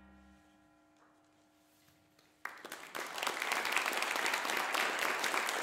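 The last notes of a small instrumental ensemble ring on and fade away, then an audience breaks into applause about two and a half seconds in, a dense clapping that stays loud.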